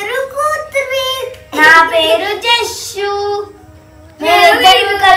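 Young boys singing a playful sing-song chant in three short phrases, with brief pauses between them.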